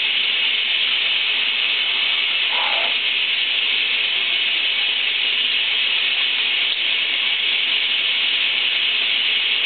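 Shower water spraying in a steady, even hiss.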